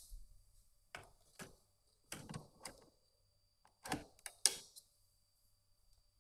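A run of short clicks and knocks, some in quick clusters, the loudest a little past the middle, as of hard parts being handled and snapped together.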